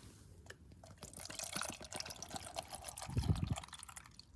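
Water poured from a plastic bottle into a metal camping-stove pot, filling it for a brew, with a running splash and a brief low thump about three seconds in.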